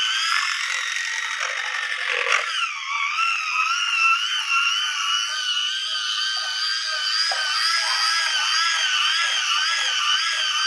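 Electric hand mixer running steadily with a high, wavering whine as its beaters whip a thick cream cheese filling. A sharp knock and a brief dip in pitch come a little over two seconds in.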